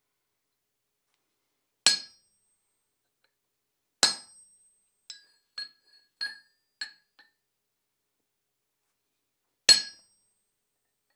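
Hammer blows on a punch marking a cold steel square bar on the anvil: three sharp ringing strikes, the second about two seconds after the first and the third about five seconds later, with a few lighter metal clinks between them.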